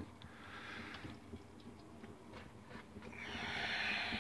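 Faint breathing close to the microphone, with a longer breath out that swells near the end, over a low background hiss.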